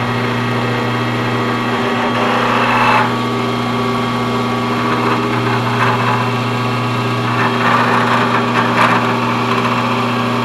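Grizzly vertical milling machine's spindle running with a steady hum while an edge finder turns in it. A few short bursts of mechanical noise come in over it as the table is cranked over by hand to the other side of the piston.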